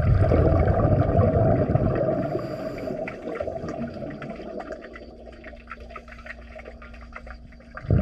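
Scuba regulator exhaust bubbles from a diver exhaling, heard through an underwater camera housing. A loud bubbling rush starts abruptly and fades away over about four seconds. A second exhalation's rush starts abruptly near the end.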